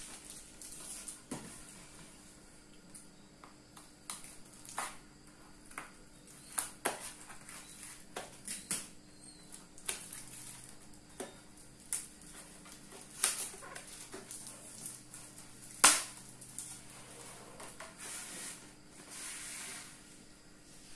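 Handling noise of a fishing rod being unpacked from a long packing tube: scattered taps, clicks and knocks of hands, cutter and tube, with a sharp knock about 16 s in. Rustling and sliding of the plastic-bagged rod near the end as it is drawn out of the tube.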